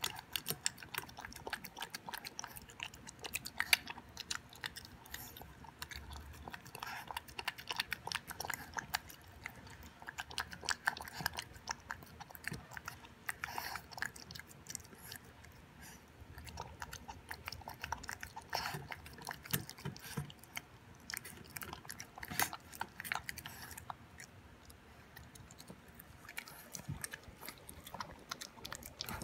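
Boston Terrier puppy eating raw beef and vegetables from a stainless steel bowl: a steady run of wet chewing with many quick, irregular clicks.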